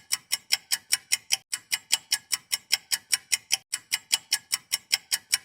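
Clock-ticking sound effect: fast, even ticks, about six a second, counting down the time to answer.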